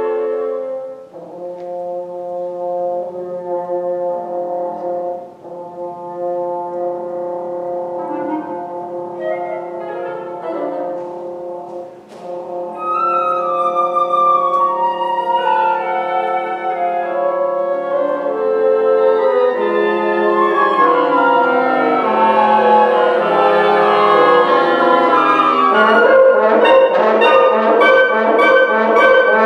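Woodwind quintet (flute, oboe, clarinet, bassoon and horn) playing contemporary chamber music: held chords at first, growing louder and busier from about twelve seconds in, into dense rapid figures near the end.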